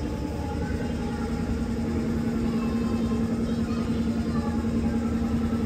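Tannery machinery running: a steady mechanical drone with one constant, unchanging tone.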